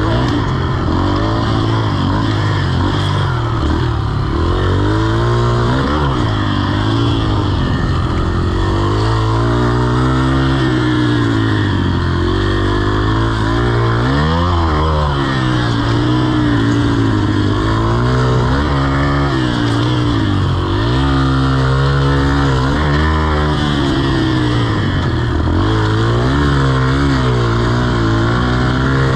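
Yamaha TT-R125's air-cooled four-stroke single-cylinder engine under load, revving up and dropping back again and again as the rider opens and closes the throttle and shifts gears.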